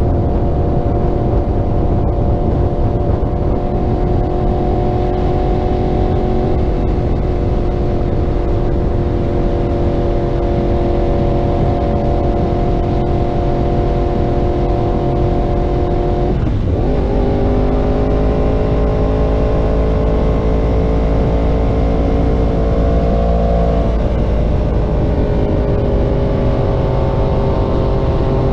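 Yamaha R1's inline-four engine, fitted with a Graves aftermarket exhaust, running at a steady cruise, heard from on the bike over heavy wind rumble on the microphone. A little past halfway the engine note dips sharply and recovers, then drifts lower. Later it steps down once more.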